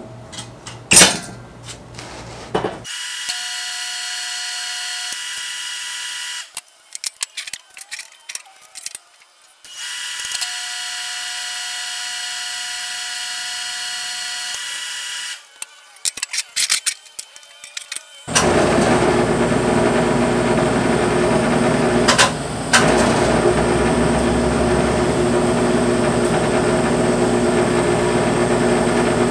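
A few metal clanks from a steel frame being handled, then a TIG welding arc buzzing steadily in runs of a few seconds, with clicks and small knocks between the welds. The last and loudest run starts a little past halfway and lasts about ten seconds.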